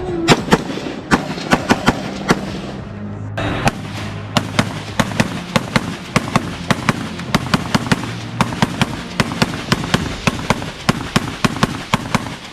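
A rapid series of gunshots, often several a second, over background music.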